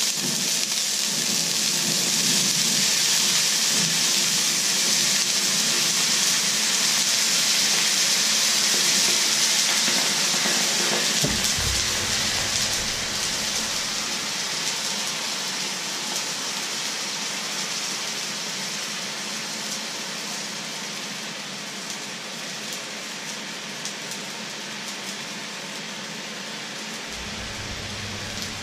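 Water poured into a hot, dry frying pan on the hob, hissing and sizzling as it flashes to steam. The loud hiss starts suddenly and slowly dies down as the pan cools and the water boils off.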